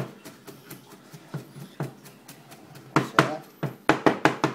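Kitchen knife mincing garlic on a cutting board: light, irregular taps, then a run of louder, quicker chops, about five a second, starting about three seconds in.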